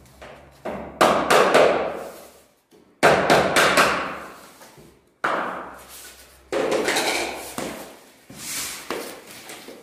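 Hammer knocking laminate flooring planks together to close their joints: sharp knocks in quick clusters every couple of seconds, each cluster trailing off in room echo.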